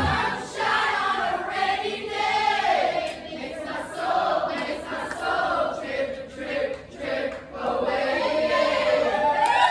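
A group of voices singing together, unaccompanied, with no band underneath.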